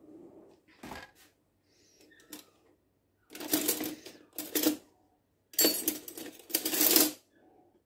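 Metal baking tray being fetched and handled: four short bursts of clattering and scraping in two pairs, starting a few seconds in.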